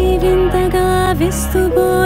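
Background music: a melody that slides between notes over a sustained low bass.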